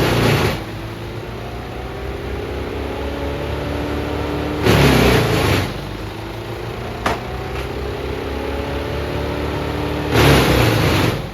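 Morbark M14 drum chipper with its Perkins 1104E diesel running steadily, broken three times, about five seconds apart, by a loud harsh burst of about a second as wood goes through the drum; after each burst the engine and drum note climbs slowly back up as they recover speed. A single sharp click about seven seconds in.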